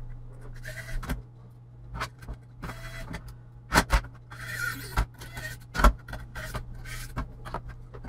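Metal-on-metal clinks and scraping as a perforated sheet-metal drive cover is handled and set into place over the drive bay on a computer's steel chassis, with a few sharp clicks.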